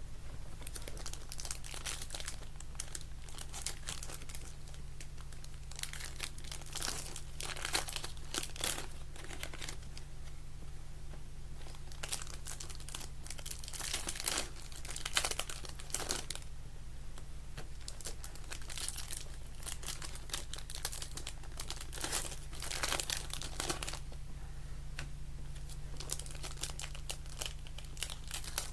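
Trading-card pack wrappers crinkling and tearing as packs of 2025 Panini Select Baseball are opened, in irregular bursts over a steady low hum.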